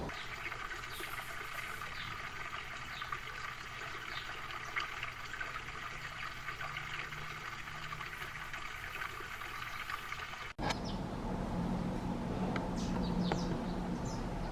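Small wild birds giving short, high chirps over a steady hiss. The hiss breaks off suddenly about ten seconds in and picks up again with sharper, higher calls.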